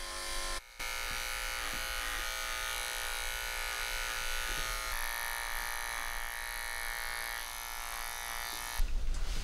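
Wahl electric pet clipper buzzing steadily as it shaves the fur between a cat's paw pads. It breaks off briefly under a second in, its tone shifts slightly about halfway through, and it stops near the end.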